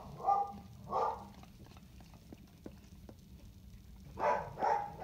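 Newborn Airedale puppy squealing in short, high cries, two near the start and two near the end, with a few faint clicks between. It is being rubbed dry with a towel, and the squeals are the stimulation that gets a newborn pup breathing and clearing fluid from its nose and lungs.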